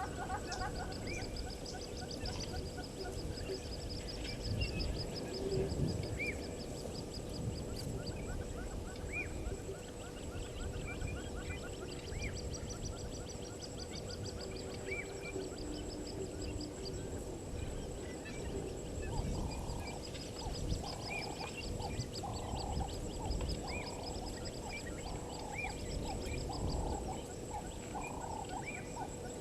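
Wild birds and other animals calling: repeated short high trills and scattered chirps, joined about two-thirds of the way in by a run of lower, evenly pulsed calls.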